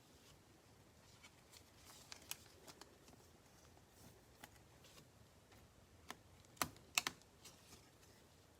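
Faint clicks and taps of trading cards being handled and flipped through a stack, with two sharper clicks about six and a half and seven seconds in.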